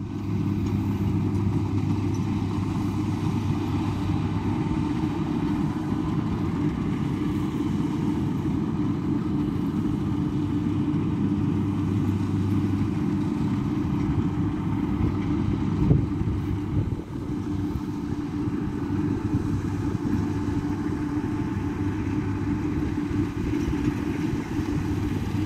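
Kubota combine harvester's diesel engine running steadily as it cuts ripe rice, a continuous low hum, with a brief knock about sixteen seconds in.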